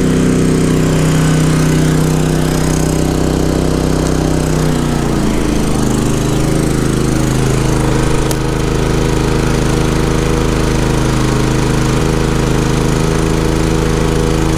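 Champion 3400 dual-fuel inverter generator's single-cylinder engine running under the load of a 15,000 BTU RV air conditioner. About five seconds in its pitch drops and settles lower as it goes into eco mode, and it keeps running steadily.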